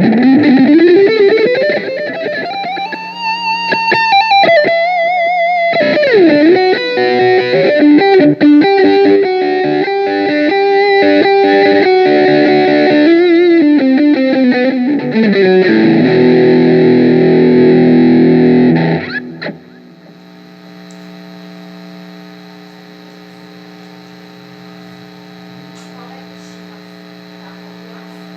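Electric guitar played through a Zoom G7 multi-effects unit: a long upward slide into held lead notes with vibrato, then a strummed chord that is cut off suddenly about 19 seconds in, leaving a faint ringing tail.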